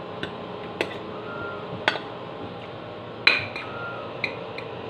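Metal spoon clinking against a plate of fried rice while scooping, a string of short sharp clinks, the loudest a little past three seconds in.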